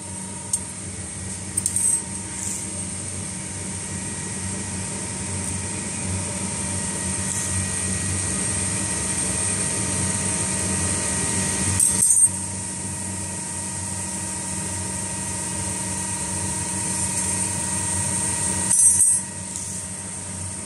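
Steady hum of an automatic flat-wire ring making and butt welding machine running. Twice, about twelve seconds in and again near the end, a short metallic clatter as a finished flat iron wire ring drops onto the pile of rings.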